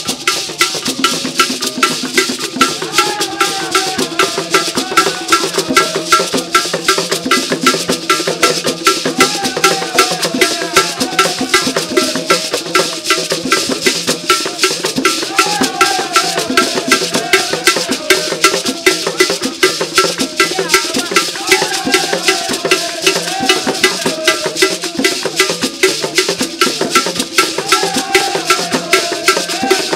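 Ghanaian traditional drum ensemble: wooden hand drums and gourd rattles playing a fast, steady rhythm, with voices singing over it.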